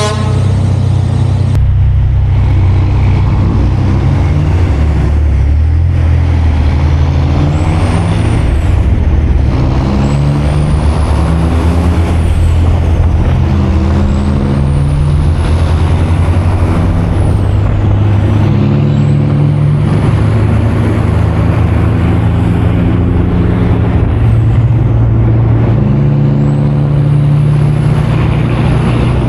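Cummins ISX diesel of a Kenworth C500 truck running hard under load, with a high turbo whine that rises and drops again about five times as the engine pulls.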